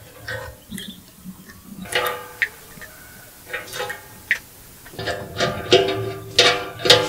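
Background music of plucked-string notes, picking up in the last two seconds.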